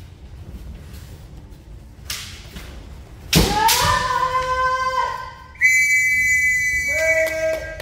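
A bamboo shinai strike lands with a sharp crack a little over three seconds in, at once followed by a long, high-pitched kiai shout from a women's kendo fighter. A second, higher and longer kiai shout begins near the end.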